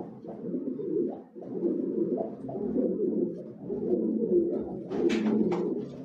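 Domestic pigeons cooing continuously, several low throaty coos overlapping. A few brief sharper sounds come about five seconds in.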